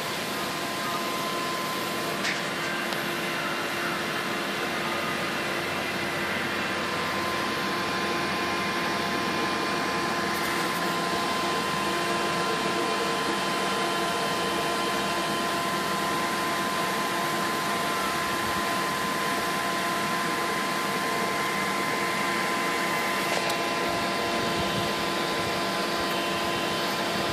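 Steady mechanical whirring hum of running machinery, with several constant tones over an even noise and one brief click about two seconds in.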